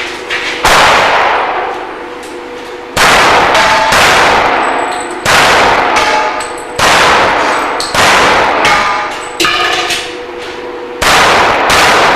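Pistol shots fired one to two and a half seconds apart, about six in all, each with a long echoing tail, mixed with the metallic clangs and pings of steel plate targets being hit.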